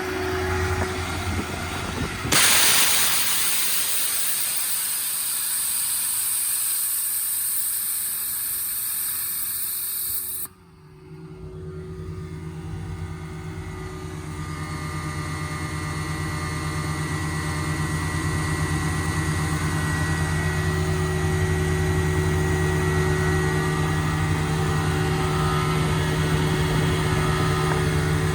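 Compressed air hissing loudly out of the service truck's air system for about eight seconds, then cutting off abruptly. A steady hum follows and slowly grows louder as the hydraulic screw air compressor loads up to refill the tank, over the truck engine running.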